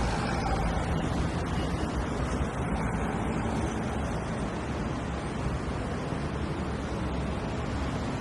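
Busy road traffic: a steady wash of passing vehicles, engines humming and tyres hissing, with no single vehicle standing out.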